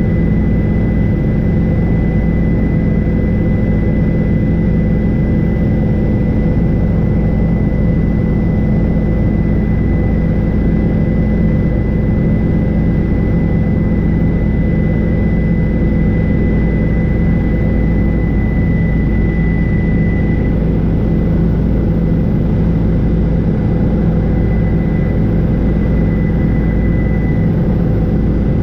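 Helicopter in cruise flight: a steady, loud drone of engine and rotors, with a thin high whine running over it.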